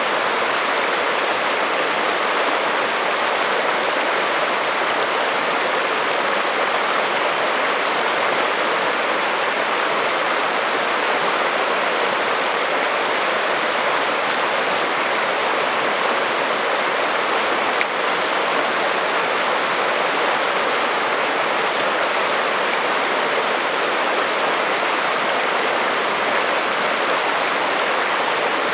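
Shallow, rocky mountain creek flowing steadily over stones: an even, unbroken rush of water.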